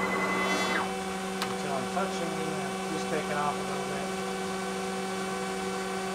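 CNC router spindle running with a steady hum as the machine surfaces a board. A louder cutting noise stops under a second in, and short rising and falling whines follow a couple of seconds later.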